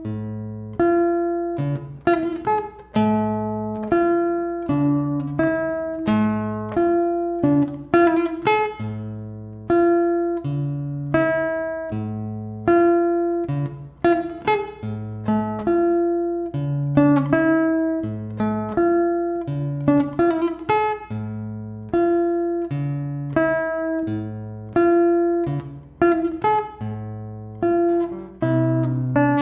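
Acoustic guitar fingerpicked: a tune of low bass notes under a higher melody, each plucked note ringing and dying away before the next.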